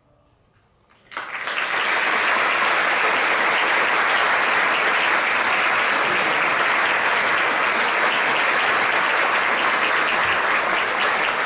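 Audience applause, breaking out suddenly about a second in after near silence and then holding steady.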